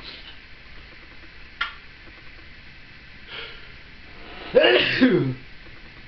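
Timneh African grey parrot imitating a sneeze: one loud sneeze-like burst whose pitch falls, about four and a half seconds in, after a sharp click and a softer breathy sound.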